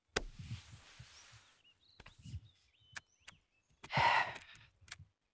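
Clothes rustling as two men get up from a woven cot, then soft footsteps on dry grass, with a few faint bird chirps. A short, louder breathy vocal sound comes about four seconds in.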